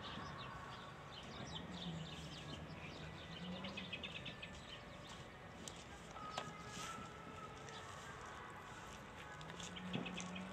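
Small birds chirping in quick twitters, with a faint low hum coming and going underneath.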